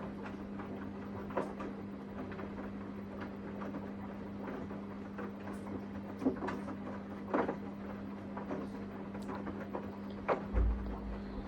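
Samsung washing machine running mid-cycle: a steady low hum with irregular clicks and knocks, the loudest a few knocks about six to seven seconds in and a low thud near the end.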